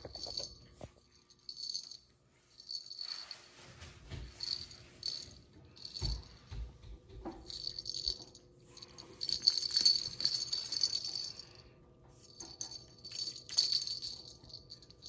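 Woven wooden catnip ball toy rattling in irregular bright, high bursts as two cats bat it and chew it, busiest past the middle and again near the end. A few low thumps about four and six seconds in.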